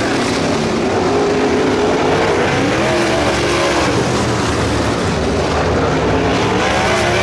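Dirt late model race car V8 engines running hard around the track, their pitch rising and falling as the cars go by.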